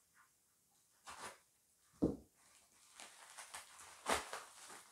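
Plastic shipping mailer crinkling and rustling as it is handled and pulled open by hand, with a single thump about two seconds in.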